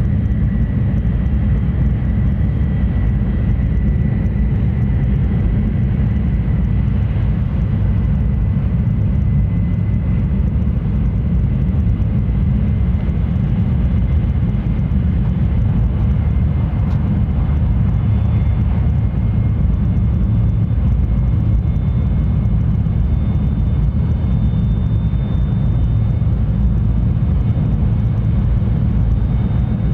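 Steady running noise of a Tohoku Shinkansen train at speed, a deep even rumble with a faint high whine above it.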